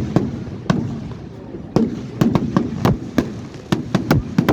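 Fireworks going off in a rapid, irregular string of sharp bangs, a dozen or more, coming faster in the second half.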